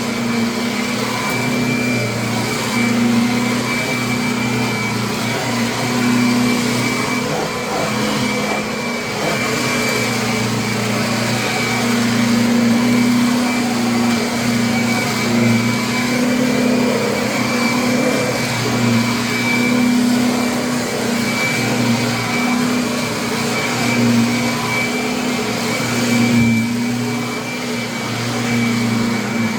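Kirby upright vacuum cleaner running steadily. Its motor gives a low hum with a thin high whine above it, and the level swells and dips a little.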